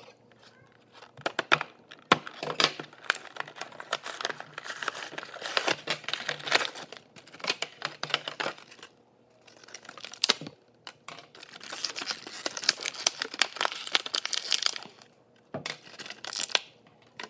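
Thin clear plastic blister packaging crinkling and crackling in spells as hands work a small action figure out of it, with quieter pauses about nine seconds in and again near the end.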